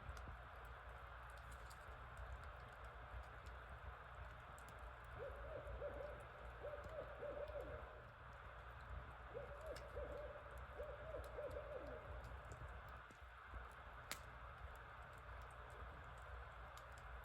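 Barred owls calling in two bouts of hooting, about five and nine seconds in, each lasting about three seconds, with several hoots ending in a downward slur.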